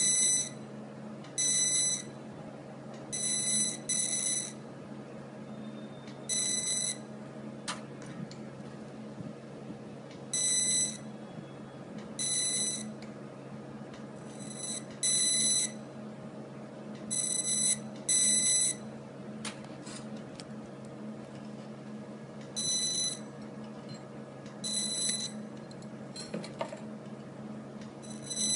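Fiber laser marking machine firing in a dozen or so short, high-pitched buzzing bursts, each under a second, with uneven gaps of one to four seconds: each burst is the laser marking a gold bangle. A steady low hum runs underneath.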